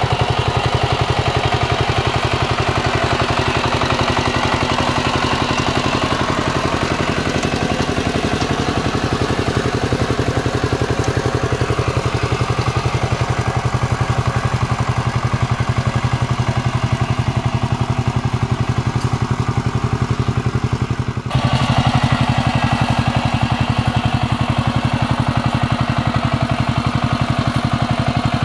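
Kamco power tiller's single-cylinder diesel engine running steadily under load as it drives the tiller through a flooded paddy, puddling the mud, with a fast, even chugging. About three-quarters of the way through the sound dips briefly and then shifts abruptly in tone.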